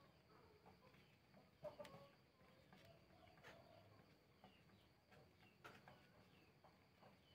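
Near silence, with a few faint clicks of pearl beads and thread being handled, the loudest about two seconds in.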